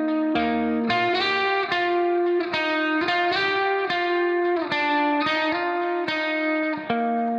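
Background music: a guitar playing ringing chords, with a new chord struck every half second or so.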